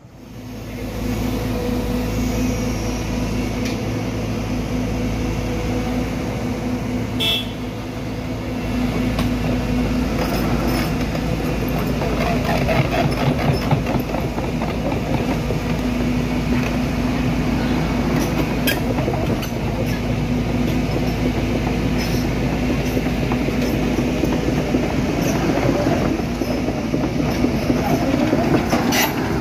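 Heavy diesel engines running steadily under load: a Cat 320 excavator and a Hino Dutro dump truck, the excavator's bucket pushing the loaded truck up a hill it cannot climb on its own. A few sharp metallic knocks stand out, about a quarter of the way in, near two-thirds and near the end.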